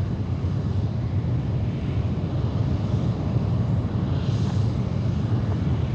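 Space Shuttle Main Engine, a liquid-hydrogen/liquid-oxygen rocket engine, firing on a test stand: a steady, deep rumble that holds even in level throughout, the engine in a sustained run of a long-duration test firing.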